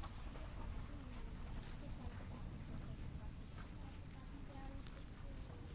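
Faint outdoor ambience: a low rumble of wind on the microphone, short high chirps repeating about every half second, and faint scattered calls lower down.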